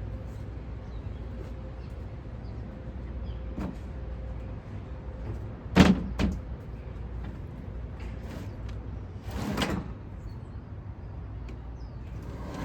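Handling noises over a steady low hum: a sharp knock about six seconds in, a smaller knock just after, and a brief scraping slide near ten seconds.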